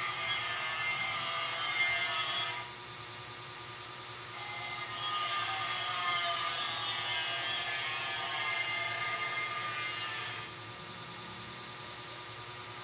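A steady, harsh rushing noise that cuts off about two and a half seconds in, starts again about four seconds in, and stops abruptly about ten and a half seconds in.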